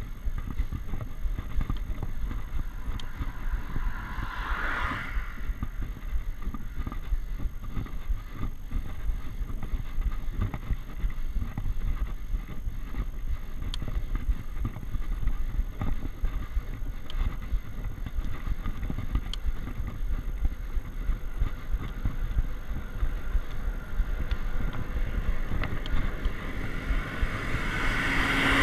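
Wind buffeting the microphone of a bike-mounted GoPro, with tyre and road noise from a bicycle riding uphill. There is a brief whoosh about five seconds in, and a motor vehicle approaches, getting louder near the end.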